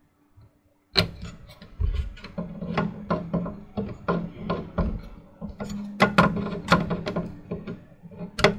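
Screwdriver driving the last motherboard mounting screw into the computer case, a dense run of irregular clicks and scrapes starting about a second in, until the screw is snug.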